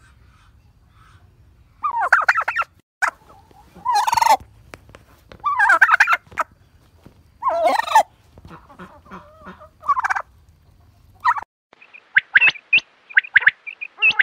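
Quail calling: short, rough calls repeated about every two seconds. Near the end these give way to quicker, higher chirping notes.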